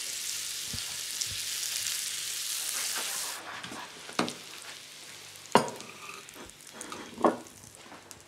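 Butter sizzling in a frying pan around a halved potato. The sizzle cuts off suddenly about three seconds in, followed by a few light, sharp knocks.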